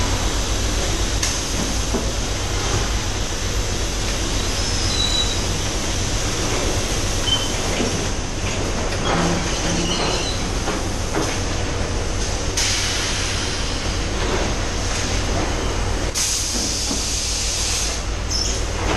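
Robotic palletizing line for 5-litre water bottles running: a steady low machine hum with scattered light knocks. Two bursts of hiss stand out, a short one about two-thirds of the way in and a longer one near the end.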